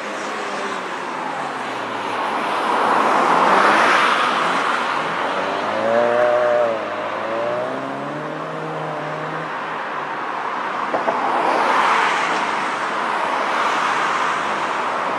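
Classic Mini's four-cylinder A-series engine driven hard through a cone course, revs rising and falling repeatedly as it accelerates and lifts between turns, with tyre noise swelling twice as it corners.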